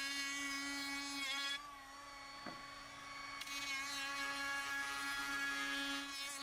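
Handheld router running with a steady high-pitched buzzing whine while routing over the edges of a wooden slat. The whine drops away for about two seconds from about a second and a half in, then comes back.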